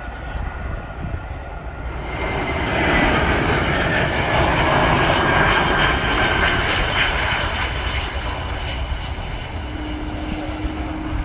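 Jet engines of an American Airlines Airbus A319 on short final and landing: a dense jet rush that comes in about two seconds in, is loudest midway as the plane passes, and eases off as it rolls out on the runway.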